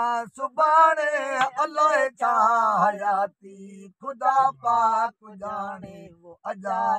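A man singing a Sindhi molood, a devotional song, in sung phrases with long wavering held notes. A steady low drone note carries on between his phrases.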